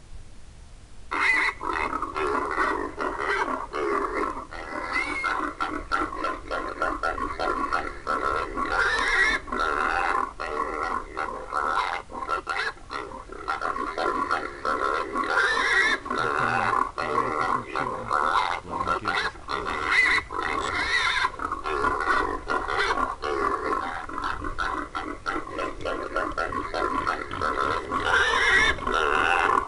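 A hog call sounding: a dense, continuous chorus of wild hog squeals and grunts that starts about a second in, with a squeal rising in pitch every few seconds.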